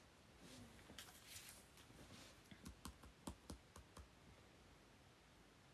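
A run of faint, quick clicks and taps, about a dozen, mostly bunched between about two and a half and four seconds in, over a quiet room.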